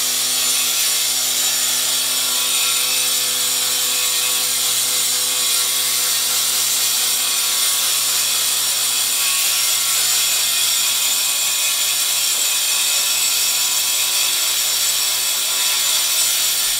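Angle grinder cutting into a black granite countertop to open the hole for the sink, running steadily with a constant whine, while a vacuum hose held at the cut draws away the stone dust.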